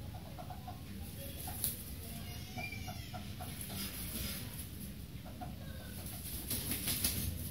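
Young Serama bantam rooster clucking in short, soft notes, with a brief flurry of wing-flapping near the end.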